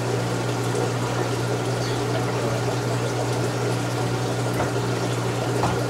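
Aquarium filter pump running: a steady low hum over the sound of moving water, with a faint tick near the end.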